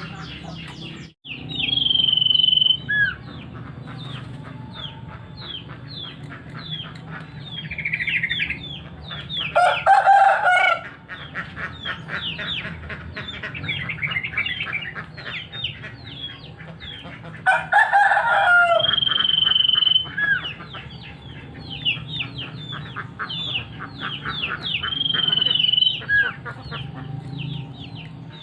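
Male common iora (sirtu) singing: long level whistles alternating with fast runs of short falling notes, several a second. A rooster crows twice, about ten and eighteen seconds in, and these are the loudest sounds.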